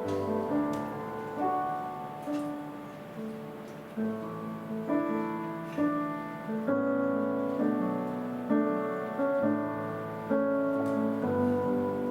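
Slow instrumental piano music: sustained chords, a new chord struck every second or two and left to ring.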